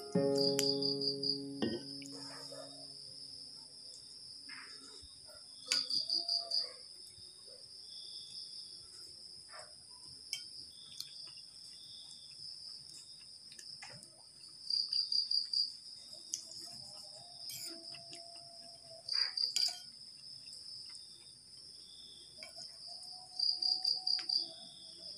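Insect chorus at night: a steady high-pitched drone of chirping insects, with a louder pulsed trill about every four to five seconds.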